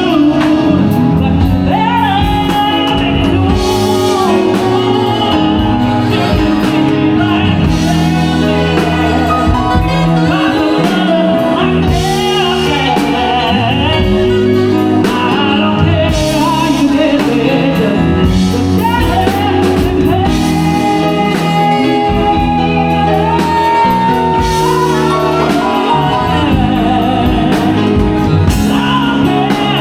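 Live band music with a singer, playing continuously through a sound check.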